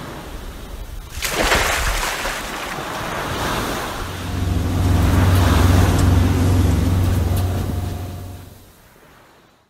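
Ocean surf, with a rush of breaking water about a second in, then a deep steady drone for about four and a half seconds that swells and fades.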